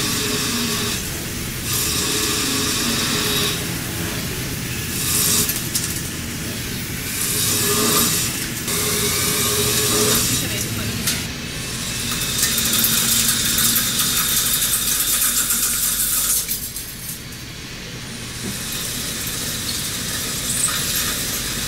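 CNC lathe turning steel shafts with carbide insert tools: a steady machining hiss with coolant spray and a faint whine from the cut. The noise changes abruptly every few seconds.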